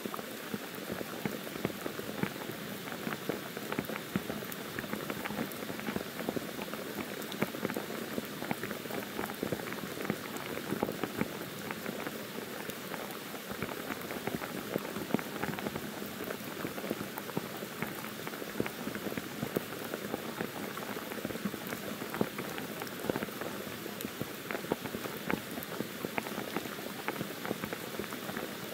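Heavy monsoon rain falling steadily: a dense hiss with many separate drops ticking close by.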